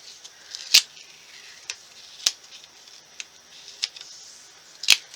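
Scissors snipping paper: a string of short, crisp snips, roughly one a second, with the loudest near the start and near the end.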